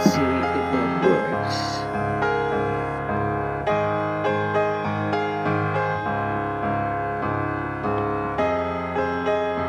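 Background piano music with notes struck at a steady, even pace.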